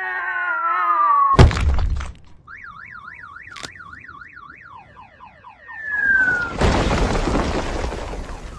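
Cartoon sound effects: a falling wail, then a heavy crash about a second and a half in as a boulder drops, a warbling alarm-like tone, a run of falling whistles, and a long rumbling crash of a rockslide that fades near the end.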